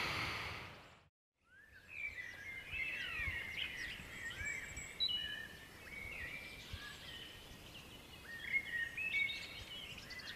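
Faint outdoor background noise fades out to a brief silence about a second in. Then several songbirds sing over one another, with quick chirps and whistled glides.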